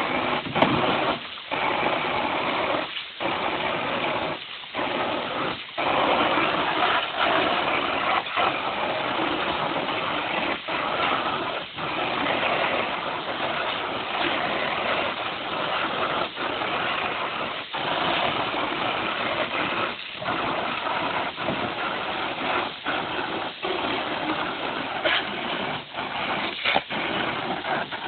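Garden hose water spraying onto a plastic kiddie pool, a steady hiss of spray broken now and then by brief gaps.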